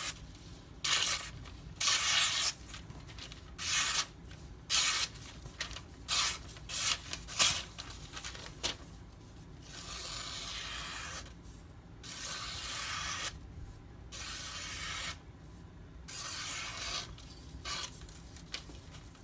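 Spyderco Manix 2 LW knife in Maxamet steel being stropped on a leather strop loaded with 1-micron diamond spray: a run of separate rubbing strokes, short quick ones at first, then slower strokes of about a second and a half each from about ten seconds in.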